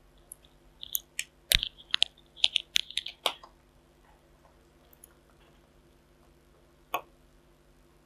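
Test leads and crocodile clips being handled on a workbench: a quick cluster of small sharp clicks and rattles in the first few seconds, then a single click near the end.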